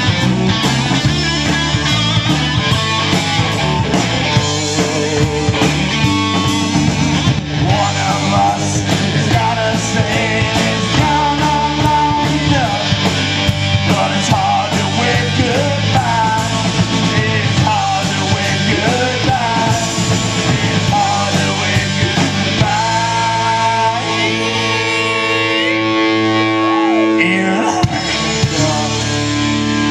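Live rock band playing an instrumental passage led by electric guitar over drums and bass. Near the end the beat stops and a held chord rings on, with the guitar bending notes over it.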